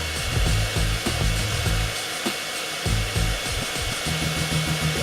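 Vacuum cleaner motor running with a steady whine and hiss, over a bass-heavy music track.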